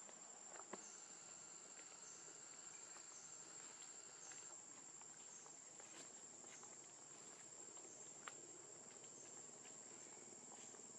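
Faint, steady, high-pitched insect drone, with a few faint clicks, one about a second in and another about eight seconds in.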